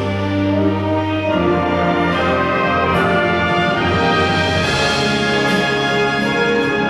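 Amateur church orchestra playing an instrumental Christmas piece, brass and strings together in sustained chords that change every second or so, the texture brightening about two-thirds of the way in.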